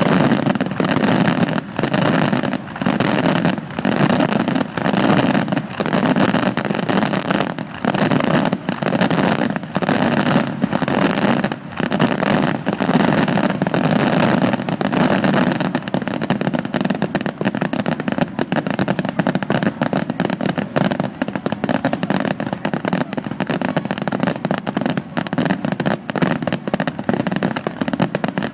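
Starmine fireworks barrage: shells bursting one after another in a continuous run of booms and crackles, packed tighter and faster from about halfway through.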